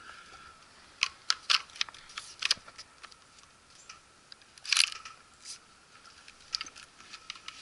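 Ruger 10/22 .22 rimfire rifle being handled: a quick run of sharp metallic clicks about a second in, and a louder clack near five seconds.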